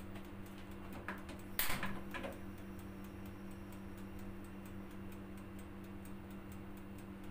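Gas stove igniter clicking rapidly as the control knob is held to light the burner, over a steady low hum, with one knock about a second and a half in.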